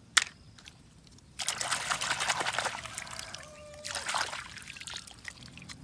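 A sharp click just after the start, then water splashing and trickling for about three seconds as a toy vehicle is rinsed, dying down near the end.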